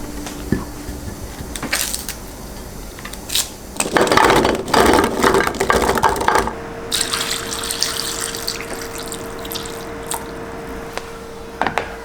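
Kitchen tap running into a sink for about two and a half seconds, with scattered clicks and knocks of handling around it. After the water stops, a steady hum carries on.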